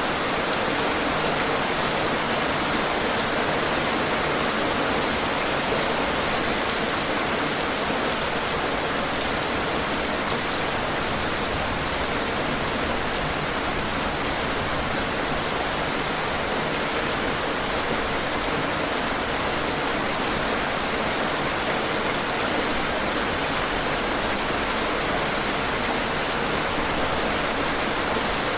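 Steady, even rain falling on a surface, a dense hiss of many drops with the odd sharper drop tick standing out.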